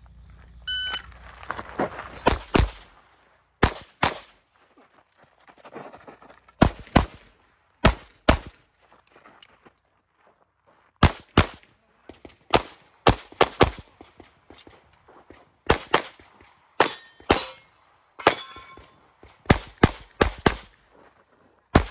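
Electronic shot-timer start beep about a second in, then a competition pistol fired over and over, mostly in quick pairs, as the shooter engages the targets on the stage. Struck steel targets ring briefly after shots near the end.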